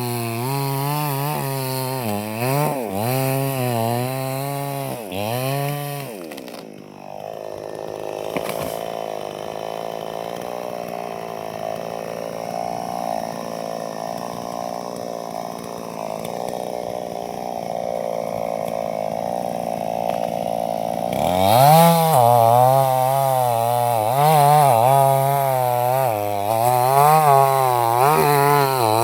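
Chainsaw running and cutting wood, its engine note wavering up and down again and again under load. About six seconds in the pitch drops away and the saw runs more steadily, then the wavering cut resumes about 21 seconds in.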